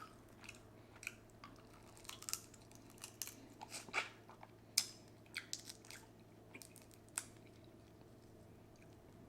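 A person chewing food, with irregular crunchy clicks and bites that stop about seven seconds in, over a faint steady background hum.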